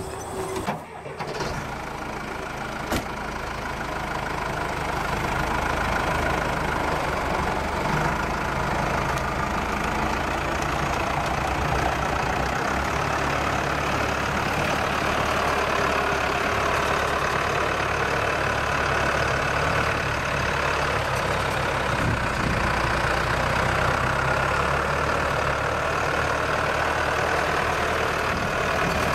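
Farm tractor engine running steadily while powering the hydraulic log-loading crane on a forestry trailer. The sound builds over the first few seconds, then holds even.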